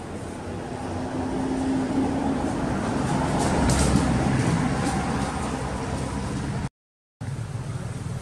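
A motor vehicle's engine running close by, growing louder over the first few seconds and then holding steady, cut off by a brief dropout to silence near the end.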